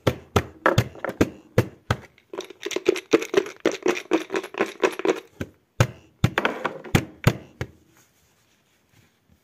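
Sharp taps and knocks on a hard object. A few separate taps give way to a fast, dense run in the middle, then a few more taps, stopping about 8 seconds in.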